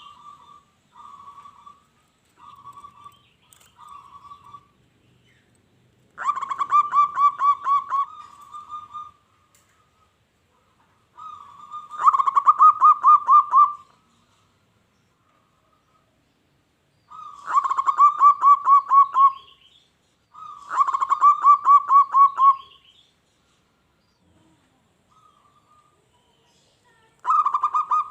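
Zebra dove (perkutut) cooing: soft short phrases in the first few seconds, then five loud phrases spaced several seconds apart, each a rapid run of staccato coos.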